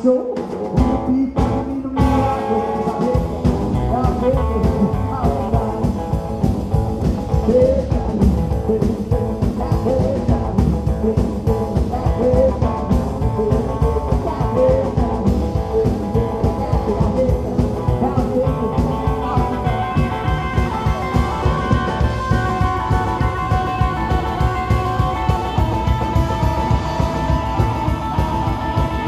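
Rockabilly band playing live: electric guitar over acoustic rhythm guitar, upright double bass and drums, in an instrumental stretch with no singing. A few separate hits in the first two seconds, then the full band at a steady driving beat, with brighter guitar lines in the second half.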